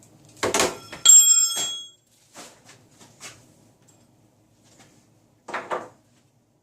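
Small steel blade-change wrench clinking once with a short, bright metallic ring about a second in, among light handling knocks. Another short bout of handling noise comes near the end.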